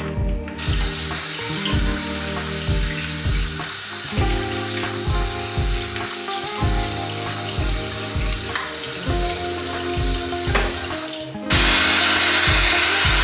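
Water running from a bathroom tap into a sink, over background music with a steady beat. About eleven and a half seconds in, the water turns suddenly much louder as it gushes into a plastic bottle being rinsed under the tap.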